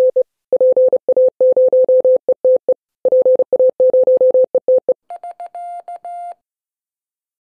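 Morse code sent as a steady mid-pitched tone, short and long beeps in quick succession with brief pauses between groups. About five seconds in, a quieter, higher-pitched tone with a buzzier edge takes over, keyed the same way for just over a second, then stops.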